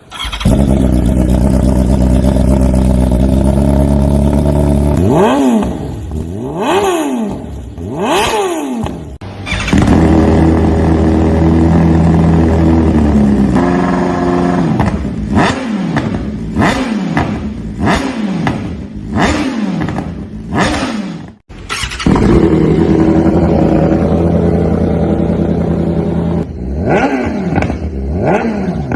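BMW S1000RR inline-four engine through an aftermarket sport exhaust, idling steadily and then revved with throttle blips that rise and fall in quick succession. This happens several times, with an abrupt break about two-thirds of the way through.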